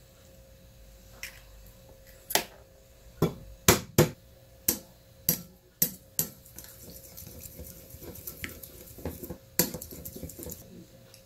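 Kitchen utensils knocking and clinking against cookware: a run of about eight sharp strikes, then a fainter crackling stretch with one more knock near the end.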